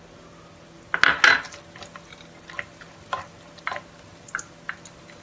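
Cashews being tipped into a hot kadai for frying, with a brief clatter about a second in, then stirred with a spatula: scattered light clicks and scrapes of spatula and nuts against the pan.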